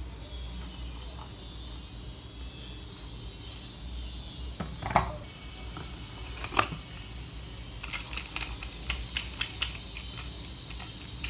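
Small plastic toy cars handled in a cardboard box: scattered light plastic clicks and knocks, with a quicker run of small clicks over the last few seconds, over a faint steady hiss.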